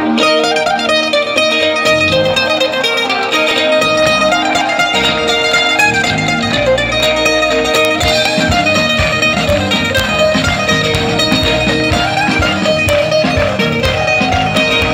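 Live band playing an instrumental passage with guitars over a steady drum beat.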